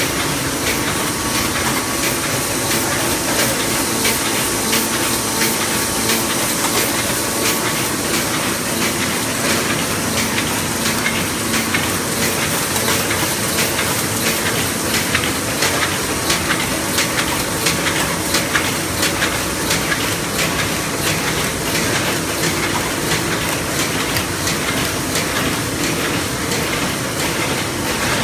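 LH-800E automatic die-cutting machine running: continuous fast mechanical clatter over a steady hiss of air.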